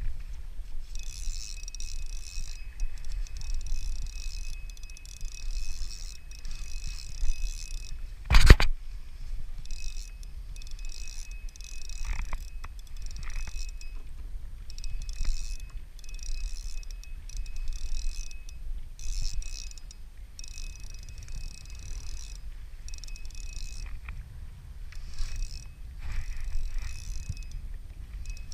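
A small mechanism whirring in repeated bursts of a second or two, with a steady low rumble of wind on the microphone. One loud knock comes about eight seconds in.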